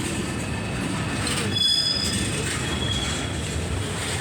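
Freight train cars rolling past close by: a steady rumble of steel wheels on rail, with a short high-pitched wheel squeal about a second and a half in and a fainter one near the end.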